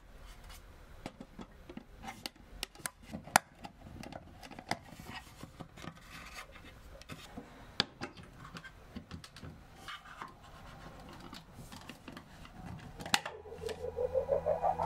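Handling noises from a plastic outlet-cover box being fitted over a wall socket: scattered small clicks, taps and scratchy rubbing as it is pressed onto the wall and a power plug is pushed into the socket, with one sharper click about three seconds in.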